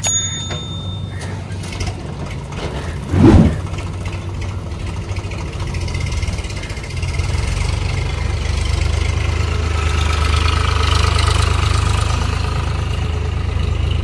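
Eicher tractor's diesel engine running steadily, growing louder from about seven seconds in as the tractor pulls its loaded trolley away. A short loud thump about three seconds in.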